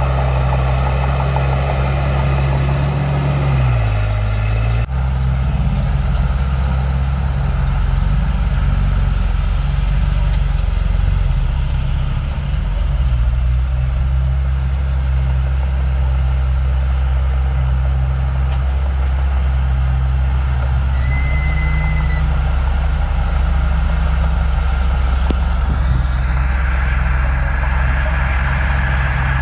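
Heavy diesel construction machinery running steadily, its engine note dipping briefly about three seconds in. A single short high beep sounds about two-thirds of the way through.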